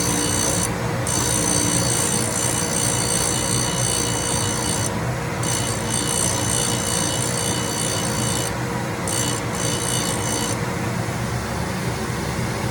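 Grinding machine running with its wheel grinding the steel stack cutters, a steady high grinding sound that breaks off briefly a few times and stops about ten and a half seconds in, leaving the machine running on its own.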